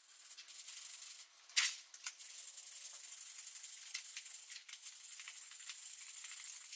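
Hand-held wire brush scrubbing forge scale off a small forged mild-steel cross: fast, continuous back-and-forth scratching, with a brief pause and one sharper scrape about a second and a half in.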